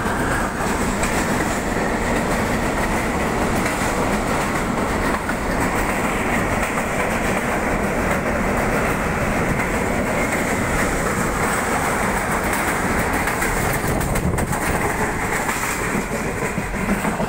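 Karakoram Express passenger train running along the rails, heard from a window of the moving train: a steady rumble of the wheels with some clickety-clack.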